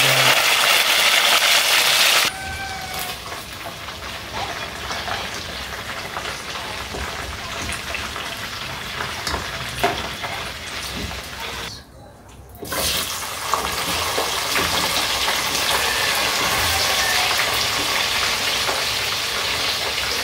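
Chicken pieces frying in hot oil in a pot: a steady sizzling hiss, loudest in the first two seconds, with a few clinks of metal tongs. The sizzle drops out briefly about twelve seconds in, then resumes.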